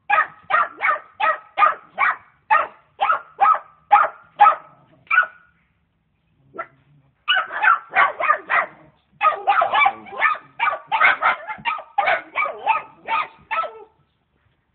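Dachshunds barking at a turtle in quick, high barks about three a second, pausing briefly near the middle, then barking hard again until shortly before the end.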